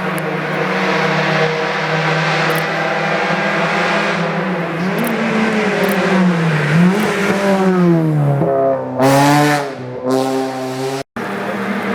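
Hillclimb race car engine running hard, its pitch holding, then wavering and falling off, then jumping abruptly as the revs change. Near the end the sound drops out for an instant.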